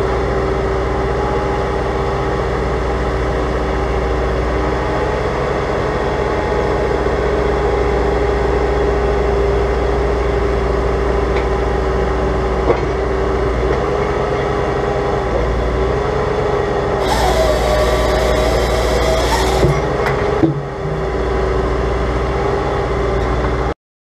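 Bobcat T300 compact track loader's diesel engine running steadily under load as the machine lifts and carries a log, with a steady whine over the engine. A high hiss joins in for a couple of seconds in the last third, and the sound cuts off abruptly just before the end.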